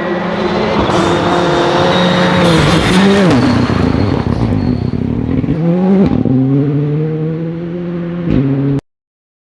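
Rally car engine at high revs on a forest stage. About three seconds in, the pitch drops as the car brakes and changes down. A few seconds later it climbs again under hard acceleration, with a quick gear change just before the sound cuts off abruptly.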